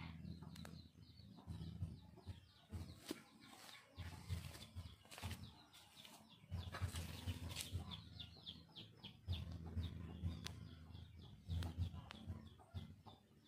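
Birds chirping in quick runs of calls, over an intermittent low rumble and scattered faint crackles from a small burning fatwood flame.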